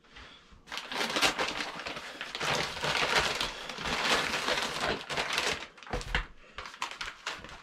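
Paper mailer envelope being opened and rummaged through: irregular paper crinkling and rustling as a plastic-bagged item is pulled out, with a dull bump about six seconds in.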